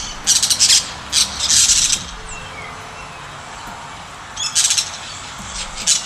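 Parakeet giving harsh, raspy screeches in quick bursts: a cluster over the first two seconds, then a few more near the end.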